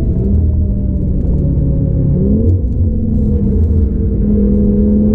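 Audi TT RS's turbocharged five-cylinder engine off the throttle under hard braking, over a constant low rumble of road and tyre noise heard from inside the cabin. About two seconds in, the revs jump up and settle higher as it shifts down a gear.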